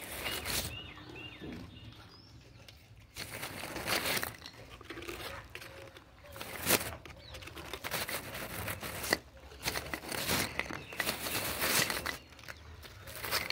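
Gray langurs eating biscuits right against the phone: irregular rustling as fur and a jacket brush the microphone, mixed with bouts of crunchy crackling from the biscuits being bitten and handled.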